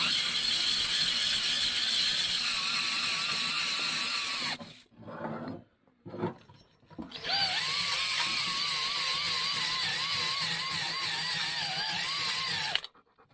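Cordless drill spinning a flex ball hone inside a Polaris Ultra triple's oiled cylinder bores, the abrasive balls scrubbing the wall under a wavering motor whine as the trigger is worked: honing a crosshatch into the bore. Two runs, the first about four and a half seconds, then a short pause while the hone is moved to the next cylinder, then about five seconds more.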